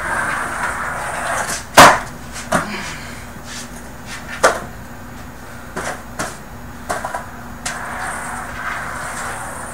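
Skateboard on basement carpet: its wheels rolling, then a loud clack of the wooden board hitting the floor about two seconds in. Several lighter knocks follow, and rolling is heard again near the end.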